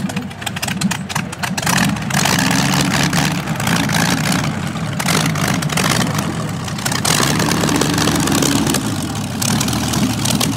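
Inline 16-cylinder engine of the Streamliner C-16, built from two Buick straight-eight engines joined end to end, running stationary at idle through its side exhaust stubs. The revs rise and fall a little.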